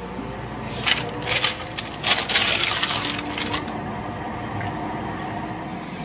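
Clicks and clattering from hands handling things at a countertop air fryer: a few sharp clicks about a second in, then a denser rattle for over a second, over a steady hum.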